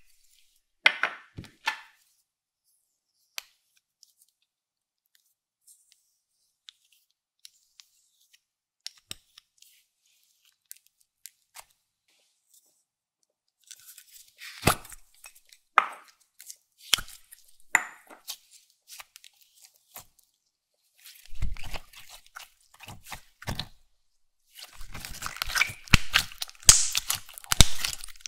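Crisp ASMR handling sounds of makeup slime materials: scattered sharp clicks and taps, then bursts of crunching and crackling about halfway through, growing dense and continuous near the end.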